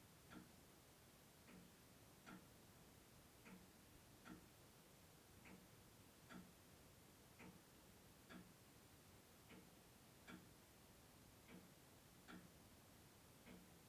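Clock ticking faintly, about one tick a second in a steady tick-tock.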